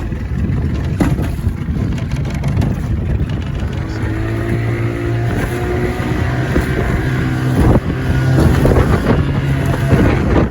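Outboard motor on a 14-foot Livingston boat running in rough seas, its steady hum clearer after a few seconds. The hull slaps the waves, with sharp hits about a second in and again near eight seconds, and wind buffets the microphone.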